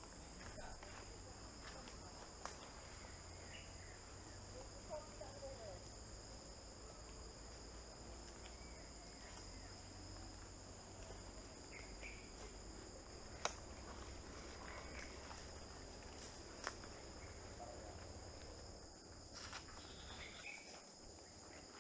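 Insect chorus, a steady high-pitched buzzing at two pitches, with a few single sharp snaps scattered through it.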